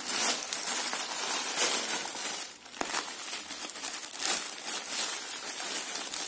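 Clear plastic and bubble-wrap parcel packaging crinkling continuously as it is handled and cut open, with a brief lull about two and a half seconds in.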